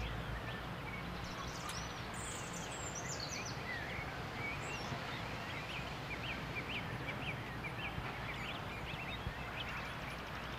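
Birds chirping, many short calls over a steady outdoor hiss.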